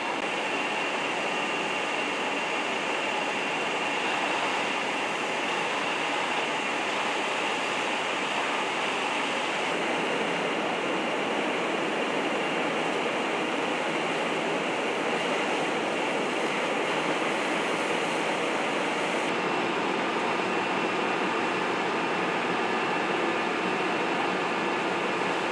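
Steady rushing noise of fire apparatus at work: aerial-ladder master streams spraying water onto the burning building, mixed with the fire engines running their pumps. A thin, steady high whine sits over it.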